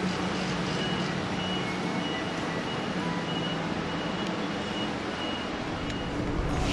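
Street traffic noise with a vehicle engine humming steadily and a high beeping repeated about twice a second.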